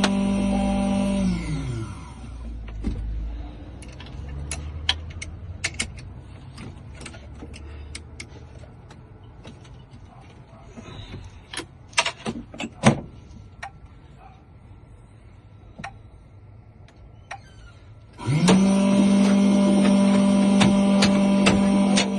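Electric key-cutting machine's motor running steadily, then winding down about a second in. A stretch of scattered clicks and knocks follows. Near the end the motor spins up again and runs steadily.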